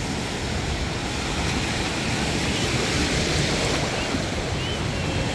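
Ocean surf washing steadily, a continuous rush of breaking waves that swells a little midway.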